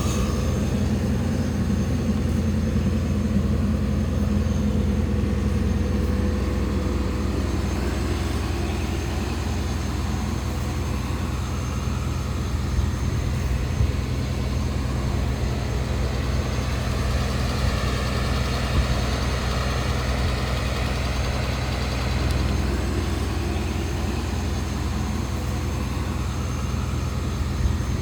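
A tracked mulcher's John Deere 6068T six-cylinder turbo-diesel engine running steadily, with a few light knocks.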